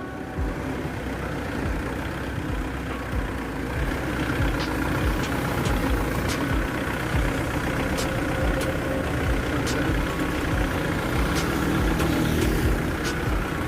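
Engine idling steadily with a low, regular thump.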